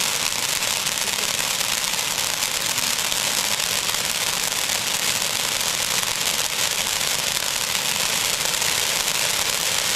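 Fireworks crackling densely and without a break: a steady, fast hiss of tiny pops with no single big bang standing out.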